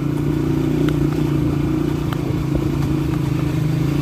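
Motorcycle engine running at a steady low speed while riding along a gravel road, with a few light clicks.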